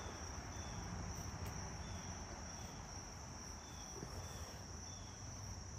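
Crickets calling outdoors: a steady high-pitched trill with a lower short chirp repeating about twice a second, faint against a low background hum.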